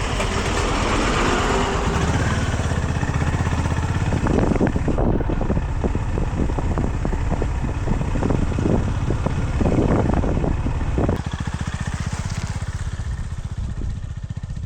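Honda GB350's single-cylinder engine running with a steady, closely spaced thumping beat; the sound gets quieter about eleven seconds in.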